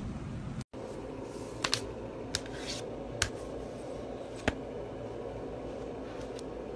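Steady indoor room noise that drops out briefly under a second in, with about five short, sharp clicks scattered through it.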